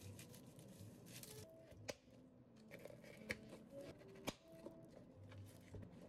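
Clear plastic dome lids snapped onto takeaway drink cups: three sharp clicks, the first about two seconds in and the others about a second apart, with faint paper rustling around them.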